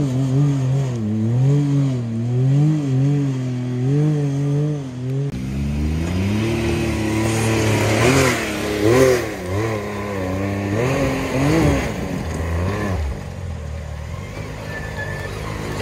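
Can-Am side-by-side engines revving up and down in repeated throttle blips as they crawl up a rocky ledge. A closer machine comes in about five seconds in with stronger, rising-and-falling revs, then eases off near the end.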